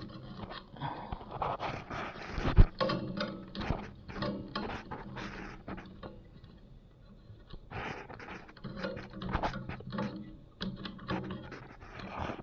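Copper refrigeration pipe being cut and handled with hand tools: irregular clicks and scrapes, with one sharp knock about two and a half seconds in.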